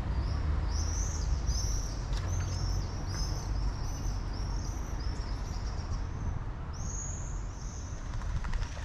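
A small bird calling a run of short, high, arched chirps, about two or three a second, ending with two longer, louder notes near the end. A steady low rumble runs underneath.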